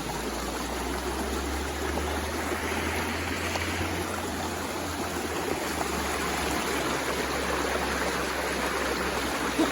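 A stream flowing steadily, an even rush of water.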